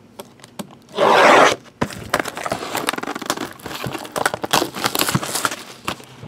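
Shrink wrap on a sealed trading-card box being slit with a blade and torn, a loud rip about a second in. Then crinkling and clicking of the plastic as the wrap is pulled off and the box is handled.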